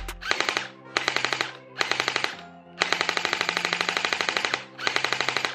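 M4A1 gel blaster dry-fired on full auto with no gel balls loaded: a rapid mechanical clatter of about fifteen cycles a second, in five bursts, the middle one the longest at about two seconds.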